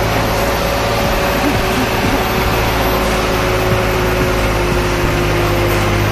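Loaded truck's diesel engine running steadily under load as it climbs a rough mountain road, carrying a load of cement.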